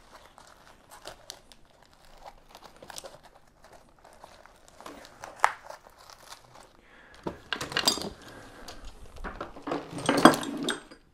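Rustling and crinkling of a first aid kit and climbing gear being handled and packed away, with scattered small clicks; the rustling gets louder twice in the second half.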